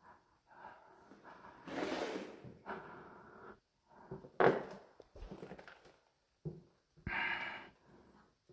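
A person's quiet breathing and small movement noises, with one short knock about four and a half seconds in.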